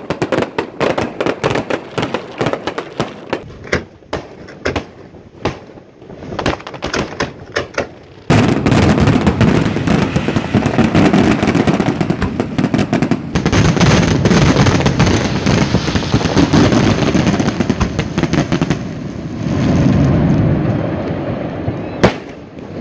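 Fireworks going off at close range, about 50 metres away: a rapid string of sharp cracks and pops at first, then from about eight seconds in a dense, unbroken barrage of bangs and crackling. One sharp bang stands out near the end.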